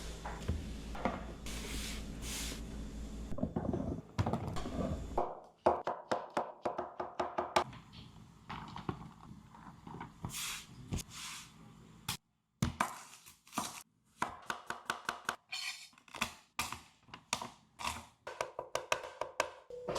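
Knife chopping on a cutting board in runs of quick strokes, several a second, broken off by sudden cuts.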